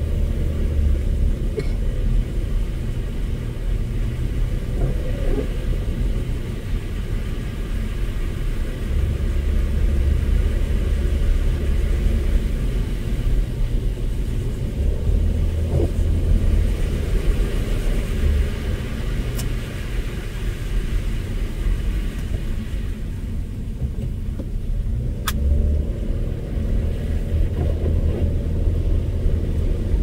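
A car driving on a snow-covered road: a steady low rumble of engine and tyres, with a couple of faint sharp ticks in the second half.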